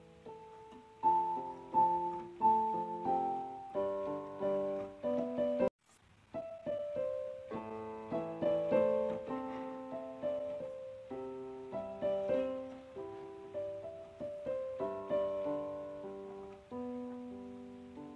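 Solo piano background music, a slow melody of single notes and chords that each strike and fade. It cuts out for a moment just before six seconds in, then carries on.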